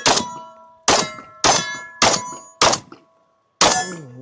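A string of six gunshots, each followed by the ringing clang of a hit steel target, with a pause of about a second before the last shot. A short voice is heard near the end.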